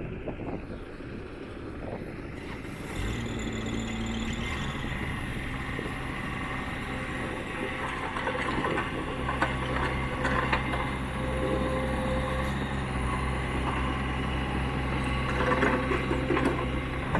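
Compact excavator's diesel engine catching about three seconds in and then running steadily, with light rattles and clicks over it.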